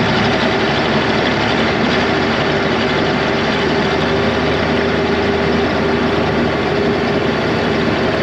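Farm tractor engine running steadily while under way, with a constant hum over the engine noise.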